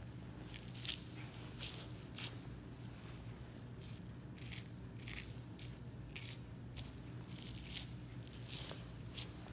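A knife slicing through fat and membrane as the kaburi cap layer is cut away from a Kuroge Wagyu beef plate: a run of short, crisp cutting strokes at an uneven pace, over a steady low hum.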